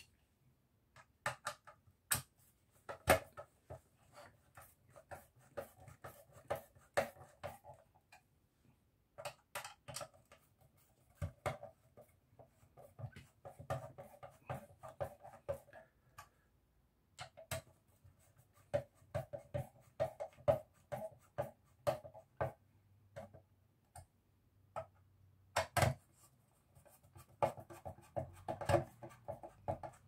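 Screws being turned by hand with a screwdriver into the plastic fan casing of a Hoover C1417 vacuum cleaner motor: irregular clicks and short scratchy runs as the screws turn, with pauses between screws.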